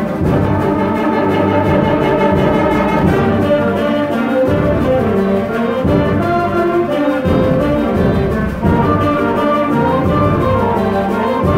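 Student concert band playing a full-ensemble passage, with brass prominent over the woodwinds.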